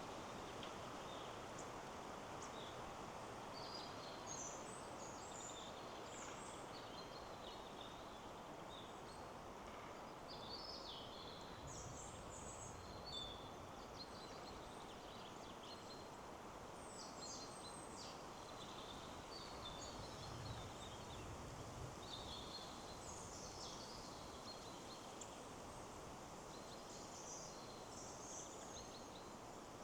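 Forest ambience: many small birds calling in short, high chirps and twitters over a steady rush of wind in the trees.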